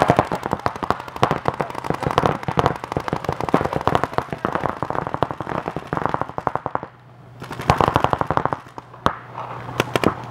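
Several paintball markers firing in rapid strings of shots, with a short lull about seven seconds in.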